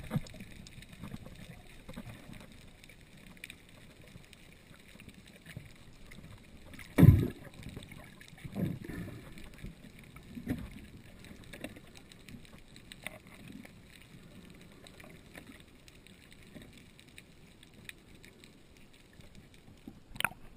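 Muffled underwater sound through an action camera's waterproof housing: a steady low wash with several dull thumps, the loudest about seven seconds in. Near the end a sharp splash as the camera breaks the water's surface.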